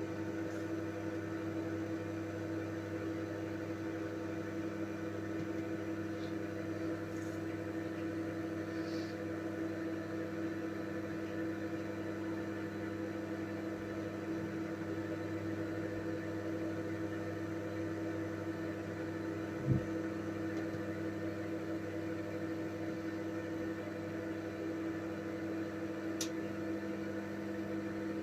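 Microwave oven running with a steady hum. A single short thump sounds about two-thirds of the way through.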